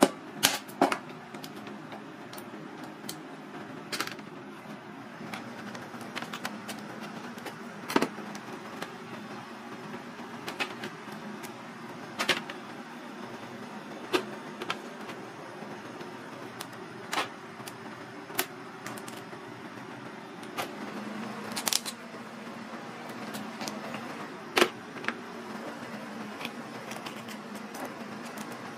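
Crab shell being cracked and handled: sharp knocks and cracks every few seconds, from a metal meat mallet striking the claws and from shell pieces set on a cutting board and steel tray, over a steady hum.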